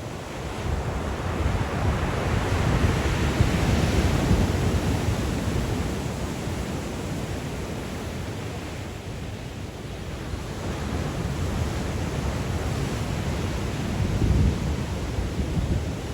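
Black Sea surf breaking and washing ashore in a strong wind, with wind rumbling on the microphone. The surge swells a few seconds in, eases midway, and builds again near the end.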